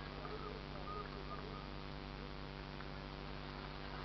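A steady low hum, with a few faint short animal calls in the first second and a half.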